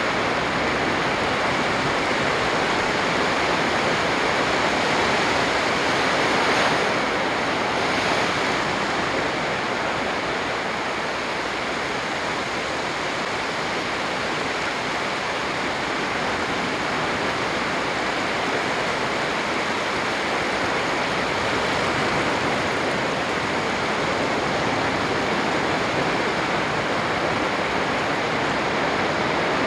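Continuous sea surf, waves breaking and washing in a steady wash of noise that swells slightly about six and a half and eight seconds in.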